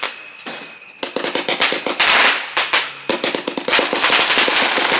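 Consumer firework going off with dense, rapid crackling pops in waves. A brief lull comes at the start, then steady crackling from about a second in.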